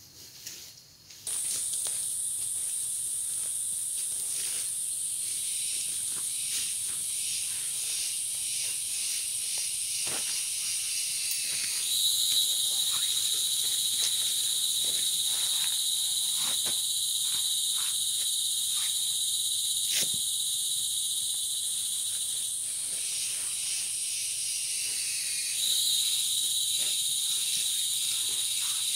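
Steady, high-pitched chorus of forest insects, two shrill tones held together. It starts about a second in and grows louder about halfway through, dipping and rising again near the end. Scattered sharp ticks run through it.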